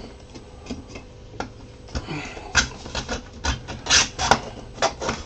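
Hollow 3D-printed plastic parts and tubes knocking and clicking together as they are handled and fitted, in irregular taps, the loudest about four seconds in.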